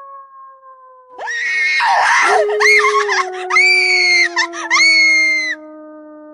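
Horror sound effect: a low ghostly howl that slowly sinks in pitch throughout. About a second in, loud high-pitched screaming comes in over it for about four seconds, as a run of held shrieks with short breaks between them, then cuts off.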